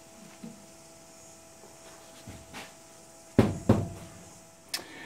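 Two sharp knocks about a third of a second apart, a little past halfway, as the fuel tank and its foam pad are lifted off the workbench, then a lighter click near the end. A faint steady hum underneath.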